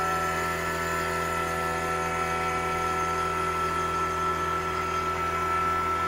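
Fieldpiece VP85 two-stage vacuum pump running steadily with a constant hum, evacuating an HVAC evaporator coil in the early pull-down, the micron reading falling fast.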